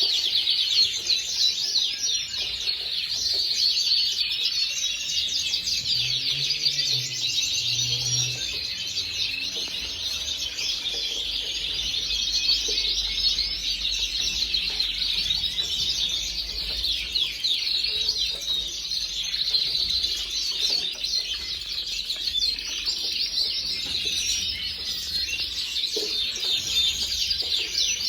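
Gloster canary singing a long, unbroken song of fast high trills and chirps.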